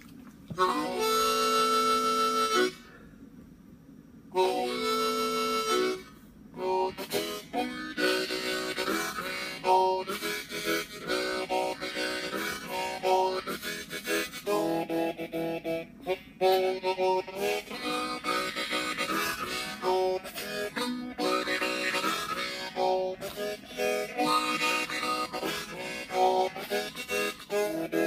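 Harmonica played solo with cupped hands: two long held chords in the first few seconds, then a fast, busy melodic run of short notes.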